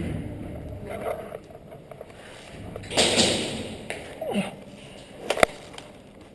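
Airsoft guns firing a few sharp cracks, the sharpest about five and a half seconds in, with a louder rush of noise about three seconds in.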